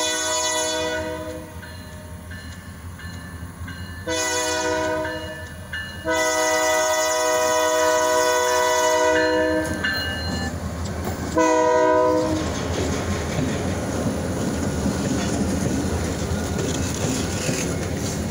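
Diesel freight locomotives' multi-chime air horn blowing a series of blasts: one ending about a second in, two long ones, then a short one. After that comes the loud rumble and wheel clatter of the train rolling past.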